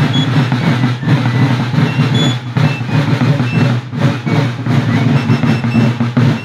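Fifes and field drums of a Walloon folk-march band playing together: the drums keep up a rapid, continuous roll, with short high fife notes over it.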